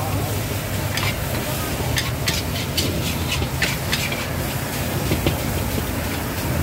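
Metal cooking utensils clinking and scraping against cookware at a street-food stall: about a dozen sharp, irregular clinks over a steady low hum.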